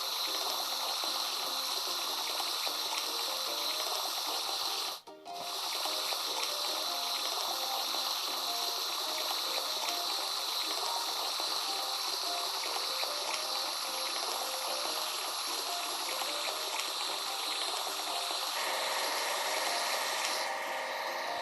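A steady rush of spraying water as the dirty parts of a toy bulldozer are washed, under light background music with a simple melody. Both cut out briefly about five seconds in.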